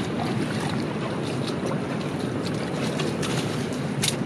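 Steady rushing noise of wind and water, with one sharp tap about four seconds in.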